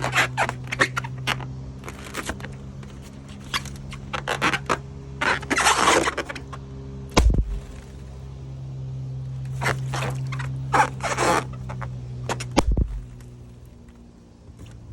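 Balloons being handled, with rubbery scraping and squeaking, and two loud sharp pops, one about seven seconds in and one near thirteen seconds. A steady low hum runs underneath.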